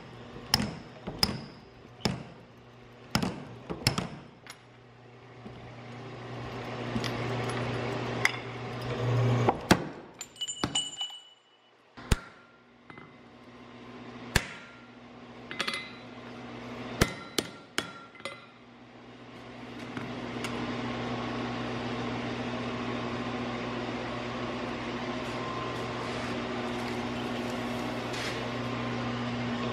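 Hammer blows on a red-hot steel double-bit axe head, sharp ringing strikes at irregular intervals with a metallic clink now and then. From about twenty seconds in, a steady machine hum takes over.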